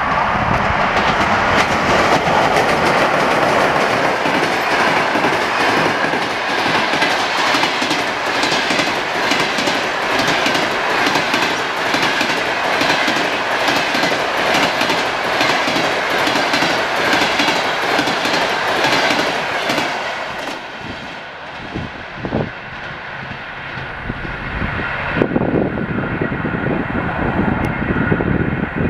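Passenger train hauled by a ChS7 electric locomotive passing at speed: the coaches' wheels rattle over the rails in a dense, steady clickety-clack. About two-thirds of the way in the noise drops sharply as the last coach goes by and the train moves away.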